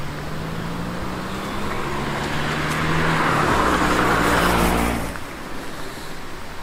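A car passing on the road: engine hum and tyre noise build to loudest about four seconds in, then drop away quickly just after five seconds.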